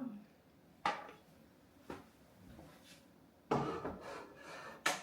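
Kitchen handling noises from dishes and utensils: two sharp knocks about a second apart, then a scraping rub lasting about a second that ends in another sharp knock.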